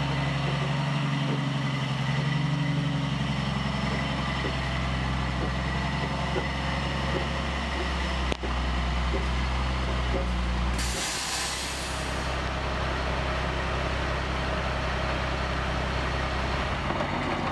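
Heavy crane truck's diesel engine running steadily, with a loud hiss of air from its air brakes lasting about a second, about eleven seconds in.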